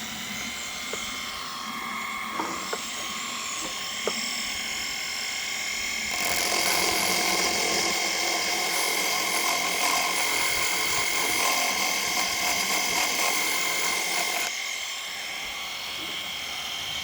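Flexible shaft die grinder running at a steady high whine with an aluminum oxide abrasive cap on a rubber arbor, grinding Carrara marble. The grinding gets louder and grittier from about six seconds in until near the end. There are a few light ticks early on.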